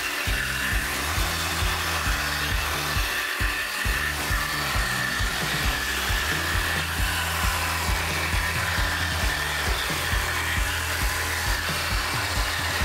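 NRT Pro JV65DC 20-volt cordless jigsaw running steadily while it cuts curves in a wooden board with a thin, fine-toothed Bosch curve-cutting blade. Background music with a steady beat plays under it.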